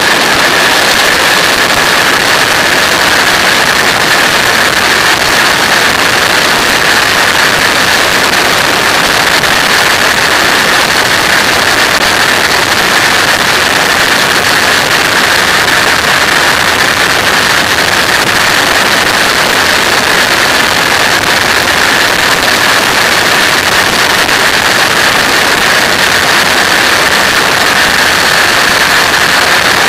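Flex-wing microlight trike in flight, heard from an onboard camera: a steady rush of wind over the microphone mixed with the engine's drone, with a constant high-pitched tone running through it.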